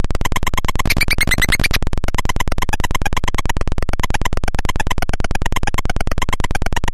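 Homemade electronic noise box putting out a fast, stuttering pulse train of about a dozen pulses a second. Its tone shifts as the knobs and switches are worked, and it turns briefly brighter and higher about a second in.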